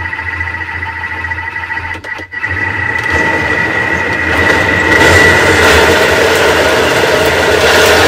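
Thermomix food processor's motor running, grinding soaked black soybeans with water into a paste. It gives a steady whine over a low hum and gets louder about three seconds in and again at five seconds as the speed dial is turned up.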